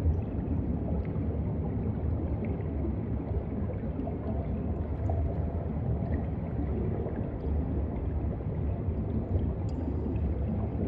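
Underwater ambience: a steady low rumble of moving water, with scattered faint clicks.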